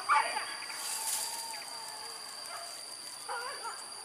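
Hunting dogs on a wild boar chase giving a few yelps and barks, one at the very start and another about three seconds in, over a steady high-pitched drone of insects.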